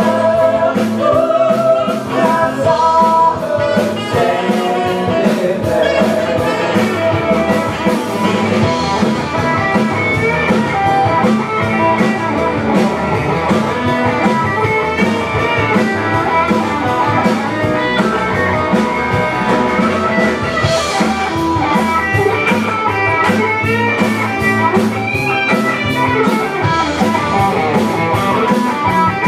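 Live band playing up-tempo rock-and-roll: electric guitars and drum kit with a steady beat.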